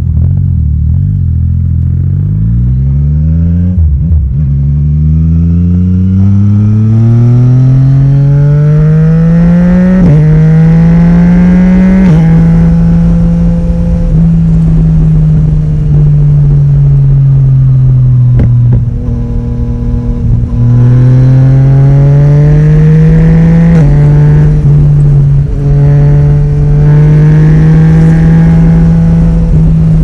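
Yamaha Tracer 900 GT's inline-three engine through an Akrapovic exhaust, pulling away from a stop and revving up through about three quick gear changes, then cruising with the revs rising and falling. About two-thirds of the way in, the throttle closes and the exhaust gives a few sharp pops, the popping the owner has noticed since the Woolich dyno retune.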